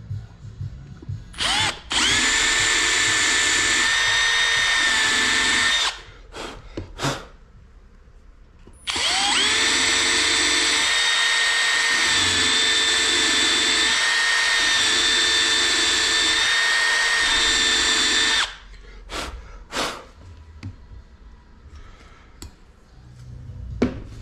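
Cordless Milwaukee M12 drill boring into a cast-iron side-valve Ford cylinder head, drilling the holes for a metal-stitching lock across a crack. It runs steadily at one speed twice, about four seconds and then about nine seconds, with short trigger blips around the runs.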